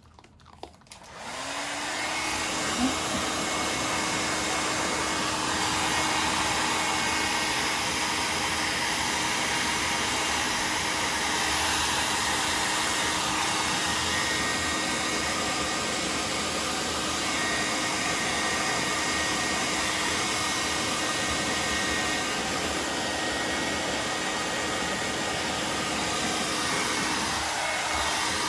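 Hair dryer switched on about a second in, its motor spinning up with a rising hum, then blowing steadily.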